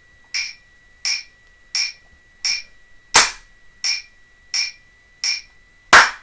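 Metronome clicking steadily at about 86 beats a minute, four clicks of count-in, then hands clapping a rhythm over it: one clap about 3 s in, held as a whole note, and another near the end starting a dotted note. A faint steady high tone sits under it.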